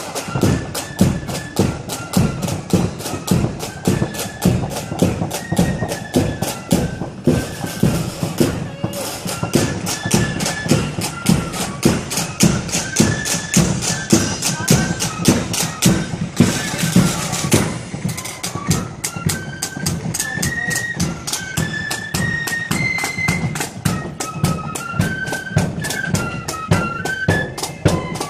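Marching flute band playing a tune: massed flutes carry a high melody over a steady, fast drum beat.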